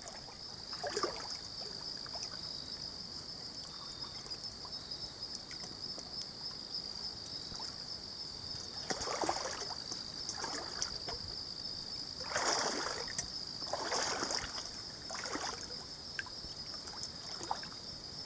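Water splashing and swishing in a river, in a handful of separate surges as someone wades or moves through it, over a steady high-pitched whine.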